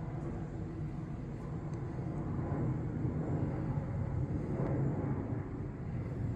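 Steady low outdoor rumble that swells a little in the middle, with no distinct events.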